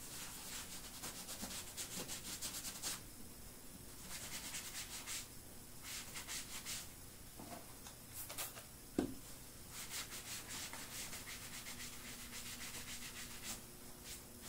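Sponge scrubbing the leather toe of a cowboy boot with saddle soap, in bursts of quick back-and-forth strokes with short pauses between them. A single thump about nine seconds in.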